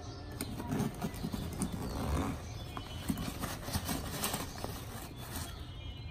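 Handling noise from a nylon backpack being moved by hand: fabric rustling with irregular soft knocks and clicks.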